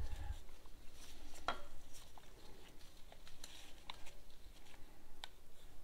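Scattered light metal clicks and taps as a BMW R100 boxer engine's cylinder barrel is worked over the piston and its rings by hand, with a low handling rumble at the start.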